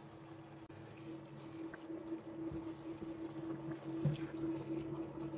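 Ground beef in tomato and mushroom sauce being stirred with a silicone spatula in a stainless steel pan, giving wet, sloppy liquid sounds that grow louder after the first second or so. A faint steady hum runs underneath.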